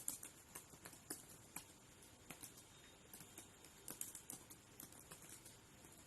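Computer keyboard being typed on: faint, irregular key clicks, several a second, in quick runs with short pauses.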